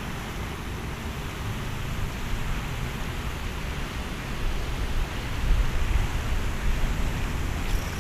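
Wind buffeting the microphone, a low rumble that turns gustier and louder about halfway through, over a steady even hiss.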